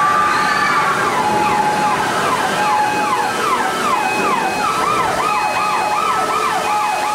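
Several emergency sirens wailing at once, their pitch sweeping up and down, with a faster warbling siren joining about halfway through, over a steady rush of flood water: the staged earthquake-and-flood effects of a theme-park ride.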